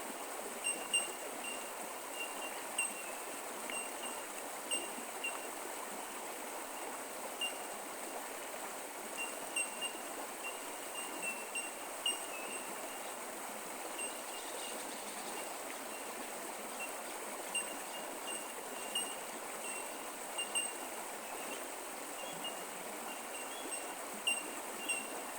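Bush creek water flowing and trickling steadily, with short, high-pitched chirps scattered irregularly throughout.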